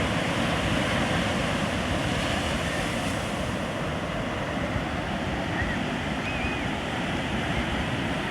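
Ocean surf washing in steadily, with wind on the microphone.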